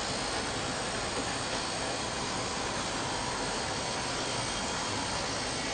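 Steady, even hissing noise with no rhythm or change.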